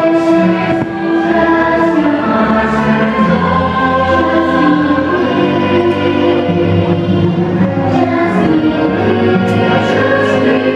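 Fireworks-show soundtrack of a choir singing long held notes over orchestral music, played through loudspeakers.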